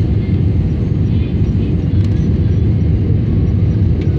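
Steady low roar of an airliner's jet engines and rushing airflow, heard inside the passenger cabin while descending toward landing.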